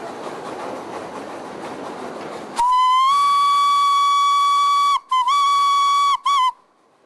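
Narrow-gauge train running along the track with a steady rumble. About two and a half seconds in, the locomotive whistle sounds on one high pitch: a long blast of about two seconds, then a shorter one and a brief toot. The sound cuts off abruptly.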